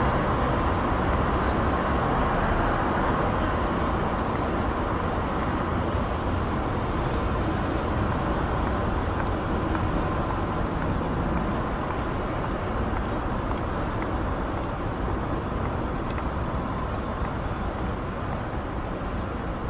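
Continuous hiss and rumble of distant motorway traffic, tyres and engines blended into a steady wash, easing slightly in level over the stretch.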